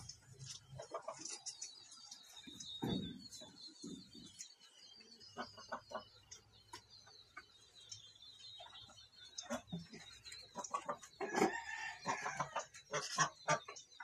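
Chickens clucking, with one longer, louder call about eleven seconds in, among scattered light clicks and taps and a steady high warbling trill.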